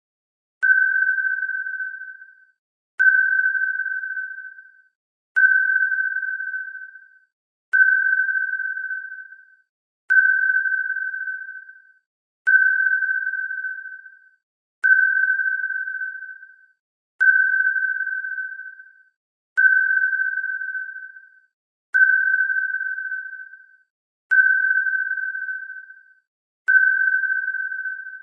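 Submarine sonar ping sound effect: a single clear tone repeating about every two and a half seconds, each ping starting sharply and fading away over about two seconds.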